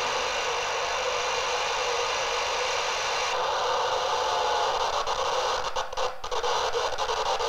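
Steady hiss of band noise from a software-defined radio receiver tuned to 14.255 MHz in upper sideband, with no station on the frequency. About three seconds in the hiss turns duller as the receiver filter is switched to narrow. There are a few brief dropouts around six seconds.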